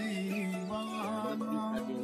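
Music: a held low note under a gliding melodic line.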